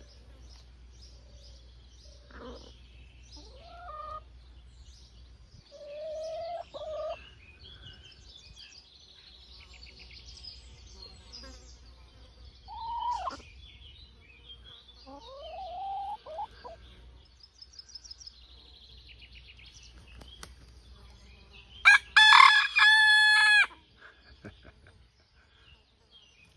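Chickens clucking here and there in the run, with small birds chirping in the background. About 22 seconds in a cockerel crows once, a short crow that is the loudest sound.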